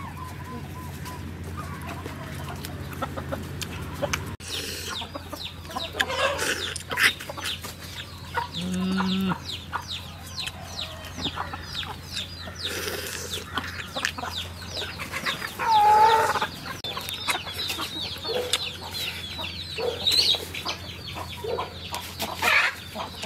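Chickens clucking, mixed with close-up crunching and chewing of crisp fried water-snake skin in quick, irregular clicks.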